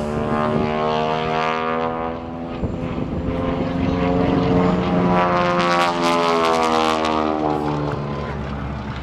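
Propeller airplane's piston engine, the Travel Air Mystery Ship replica flying aerobatics, droning as it passes. Its pitch falls at first, climbs again through the middle and falls away near the end as the plane goes by and maneuvers.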